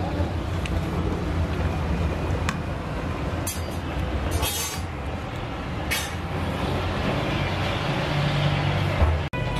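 A metal ladle stirring thick nihari in a large aluminium pot, with a few short scrapes and clinks about the middle, over a steady low rumble.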